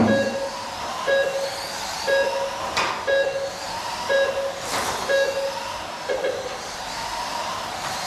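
Small electric motors of mini RC race trucks whining as they rise and fall in pitch around the track. A short electronic beep, typical of a lap-timing system, sounds about once a second, with a few sharp clicks or knocks between.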